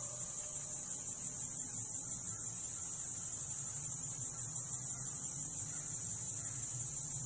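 Steady high-pitched chorus of insects, with a faint low rumble underneath.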